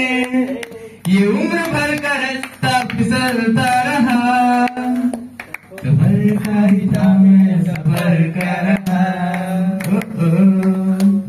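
A young man singing into a handheld microphone, holding long drawn-out notes, with a short break about five seconds in.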